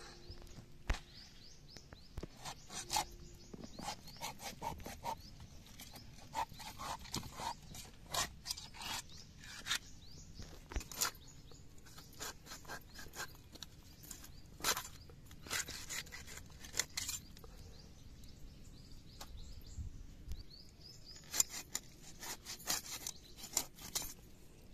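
A knife blade scraping the scales off a fish: irregular short scraping strokes and crisp clicks, coming in quick clusters with brief pauses between.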